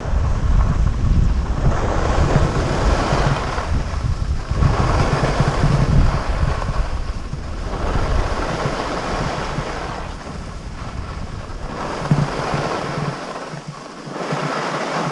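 Strong wind buffeting a GoPro camera's microphone in gusts: a rough, rumbling roar that swells and eases every few seconds and lets up briefly near the end.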